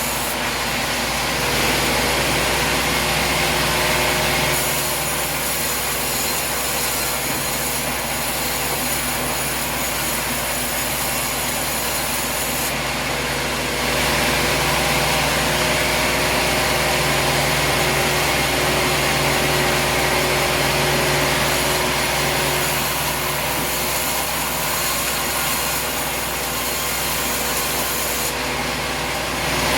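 Engine-driven sawmill running steadily while its blade cuts through a log. The sound swells louder for a couple of seconds near the start and again for several seconds midway.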